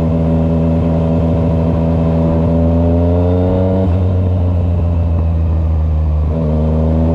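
Yamaha MT-09's three-cylinder engine running under way, its pitch climbing steadily, then dropping at a gear change about four seconds in and shifting again near the end.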